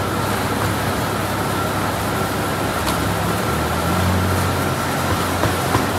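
A steady machine whir with a thin, unchanging whine through it; a deeper hum swells about halfway through.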